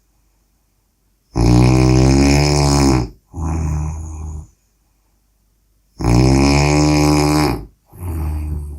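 A person snoring in a steady breathing rhythm: a loud, low-pitched snore of under two seconds, then a shorter, quieter one, twice, with silent pauses between the breaths.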